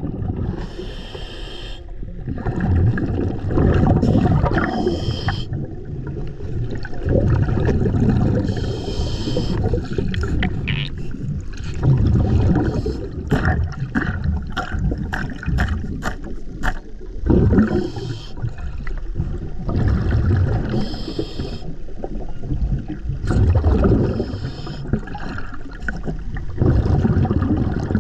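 Scuba diver breathing through a regulator underwater: a hiss on each inhale, then a burst of bubbling exhaust on each exhale, repeating every few seconds. A run of sharp clicks comes about halfway through.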